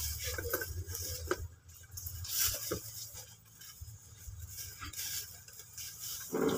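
Plastic shopping bags rustling and small goods clinking on a shop counter, with a few scattered clicks over a steady low hum.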